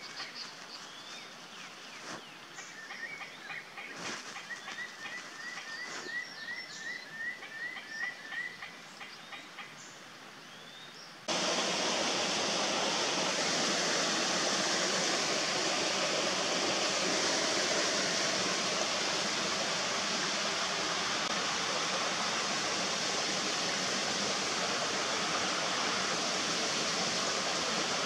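Birds calling, including a run of a dozen or so short, evenly repeated chirps. About eleven seconds in, the sound cuts suddenly to the loud, steady rush of a shallow stream flowing over rocks.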